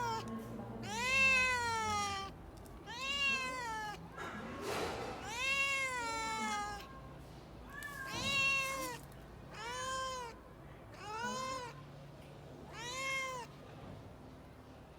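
Domestic cat meowing: about seven drawn-out calls, each rising then falling in pitch, with a short breathy noise between the second and third.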